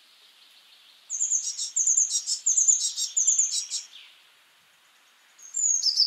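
A tit singing: a high, falling note followed by a lower note, the two-note phrase repeated four times over about three seconds, then starting again near the end.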